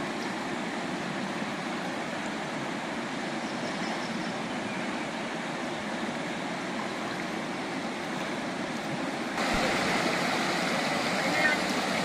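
River water running over rocks as a steady rush; about nine seconds in it suddenly becomes louder and brighter, with rapids close by.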